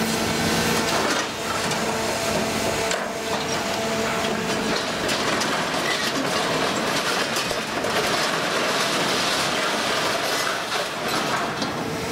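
Mixed scrap metal clattering and scraping as a stationary material handler's orange-peel grapple lowers a load into a scrap pile and releases it. Under the clatter there is a steady machine hum, which stops about five seconds in.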